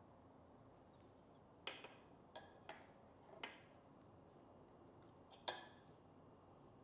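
Faint clicks and taps of small hardware and hand tools being handled, about six sharp ticks spread over a few seconds, the loudest about five and a half seconds in.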